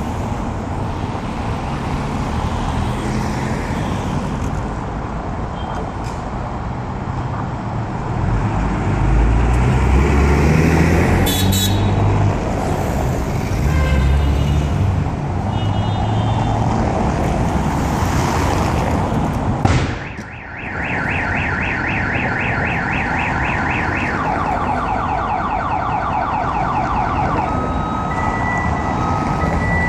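Street traffic noise with a heavy vehicle rumbling past, then a car alarm sounding. It warbles rapidly from about two-thirds of the way through and switches to alternating two-note tones near the end.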